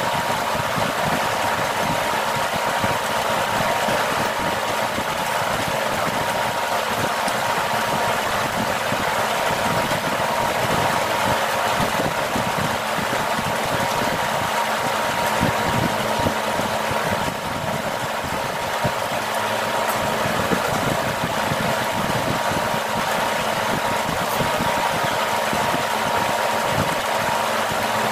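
A steady mechanical drone, like a motor running, with a faint constant whine and no break.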